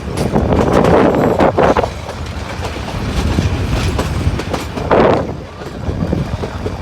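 Ooty toy train of the Nilgiri Mountain Railway running along the track: a steady low rumble with wheel clicks, swelling louder about a second in and again briefly about five seconds in.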